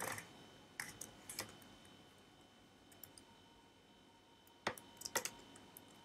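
Faint computer keyboard key presses: a few scattered clicks in the first second and a half, then a quick cluster of sharper ones near the end as a command is typed and entered.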